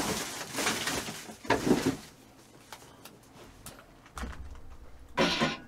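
Rustling and handling noises with small clicks as a bowl of rice is readied, then a microwave oven starts running with a low hum about four seconds in, followed by a short clatter.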